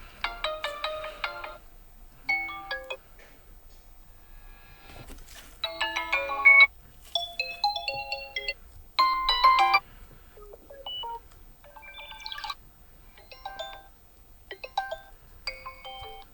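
Vivo V29 smartphone speaker playing a run of different built-in ringtones, each a short melodic snippet of a second or less, one after another with brief gaps between them.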